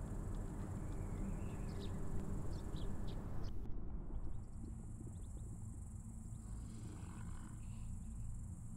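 Outdoor ambience of insects chirping in a steady, high, thin drone over a low rumble, with short chirps in the first few seconds. The background changes abruptly about three and a half seconds in.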